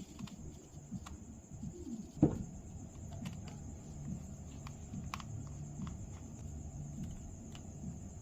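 Scattered faint clicks and taps of a small screwdriver and screws on a phone's internal brackets, with one louder knock about two seconds in, over a faint steady high hiss.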